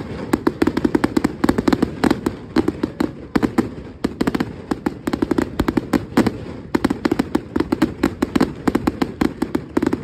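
Fireworks going off in a dense barrage: sharp cracks and bangs several times a second, with brief lulls about four seconds in and again about six and a half seconds in.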